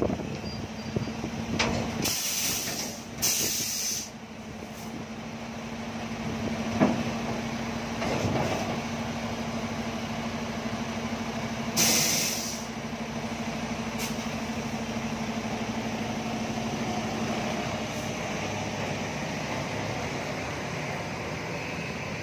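Heavy diesel dump truck running steadily, with three short blasts of compressed-air hiss from its air brakes, two close together early on and one about 12 seconds in, plus a few sharp knocks.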